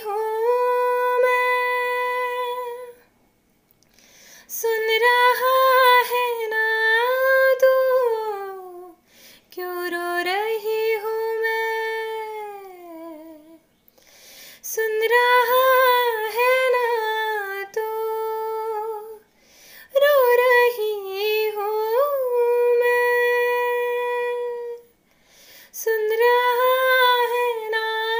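A woman singing alone without accompaniment, in phrases of a few seconds separated by short pauses. She holds long notes and slides between pitches.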